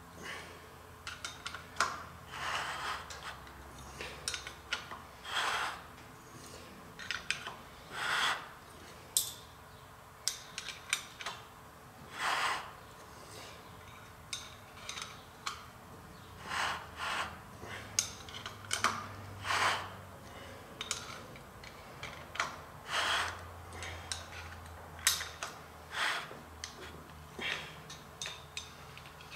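Irregular light metallic clicks, clinks and scrapes of hand work on the steel spindle nose of a horizontal boring mill, as parts and small tools are handled to loosen the spindle support collet.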